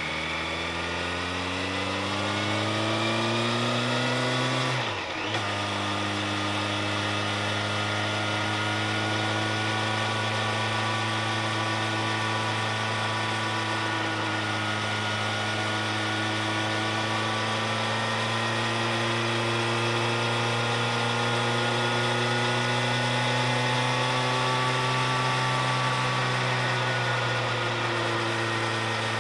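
Vehicle engine pulling up a mountain road: its pitch climbs for about five seconds, drops sharply at a gear change, then holds a nearly steady note while cruising, over road and wind noise.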